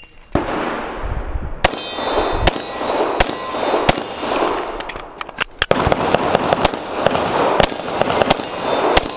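A pistol is fired in a string of shots during a USPSA stage. The shots come about a second apart at first, then quicker after a short pause near the middle, each followed by a reverberant tail. Steel targets ring after some of the hits.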